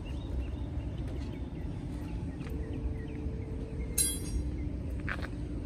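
Steady low rumble of vehicles in a parking lot, with faint bird chirps, a short sharp beep about four seconds in and a brief squeak a second later.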